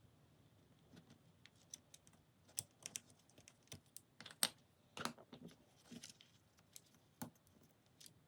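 Irregular plastic clicks and taps of keycaps being handled on a Commodore Amiga keyboard, the loudest about four and a half seconds in.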